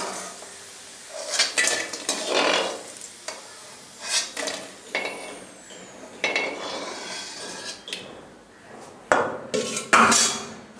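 A perforated metal skimmer scraping and clanking against a metal kadai (wok): irregular scrapes and knocks with short metallic ringing, the loudest near the end.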